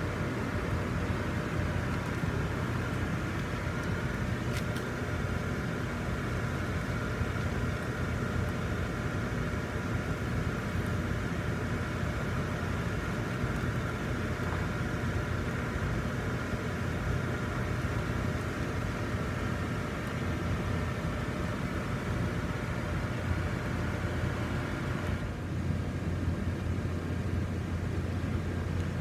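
Steady hum of the electric blower fans that keep the Christmas yard inflatables inflated, a low drone with a faint whine above it. The higher whine drops away suddenly about four seconds before the end.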